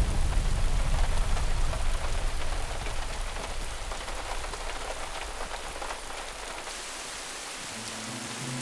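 Steady heavy rain falling, an even hiss of many drops. A low rumble at the start fades away over the first few seconds.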